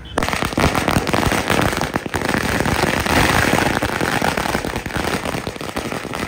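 A long string of firecrackers on the ground going off as one rapid, continuous run of loud bangs, starting just after the beginning.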